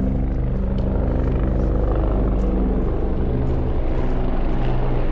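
Steady, loud low mechanical drone, like a running engine or large machine, with several held low tones.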